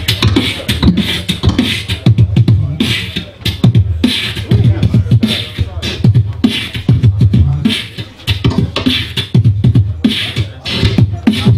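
Live beatboxing into a handheld microphone, amplified through a PA: a steady, fast beat of deep kick-drum thumps with snare and hi-hat sounds made with the mouth over them.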